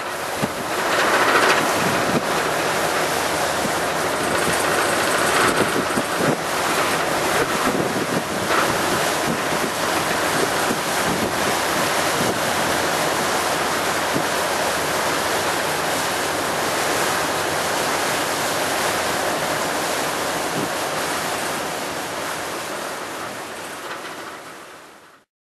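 Wind buffeting the microphone over a steady wash of water, gusting louder in the first few seconds, then fading out just before the end.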